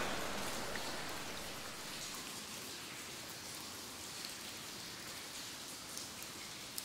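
Faint steady hiss that eases down over the first couple of seconds, with a few scattered ticks of water dripping in a cave.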